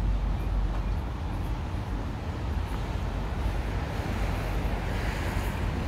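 Street traffic: a steady low rumble of passing cars.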